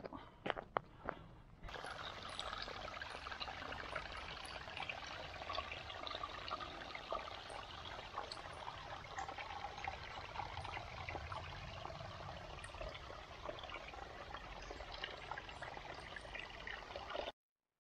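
Water running or trickling steadily, with a few clicks just before it. The water starts about two seconds in and cuts off abruptly near the end.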